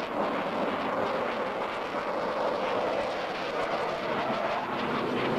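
Jet engine noise of an F/A-18 Hornet flying past, heard as a steady rushing noise with no change in pitch.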